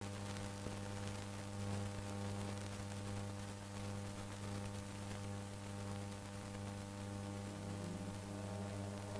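Steady electrical hum with a stack of overtones over a constant background hiss, on the soundtrack of an old film transfer.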